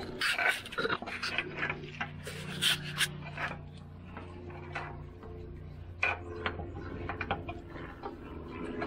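Irregular scrapes and small clicks as caked oil sludge and metal chips are scraped out of a Bridgeport milling machine's knee by hand, over a faint steady low hum.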